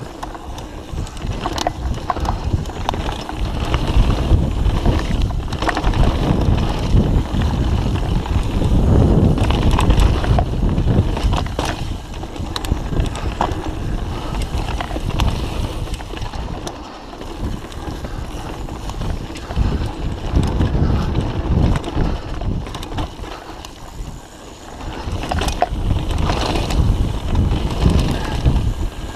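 Mountain bike riding fast down dirt singletrack: heavy wind buffeting on the microphone and tyre rumble over the trail, with scattered clicks and rattles from the bike as it goes over bumps. The rumble swells and eases with speed, dropping briefly a little past halfway and again near the end.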